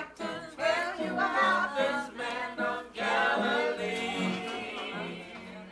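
Gospel singing with guitar accompaniment, a melody of short phrases followed by one long held note about halfway through.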